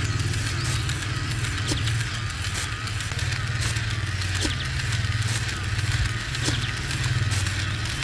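Small electric motor driving a miniature conveyor belt: a steady, pulsing low hum, with a light click about once a second as the belt turns.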